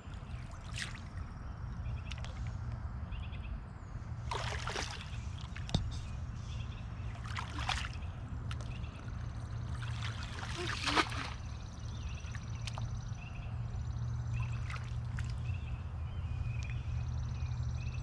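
Shallow pond water sloshing and dribbling in a few short splashes a few seconds apart, with a sharp click near the middle, over a steady low rumble.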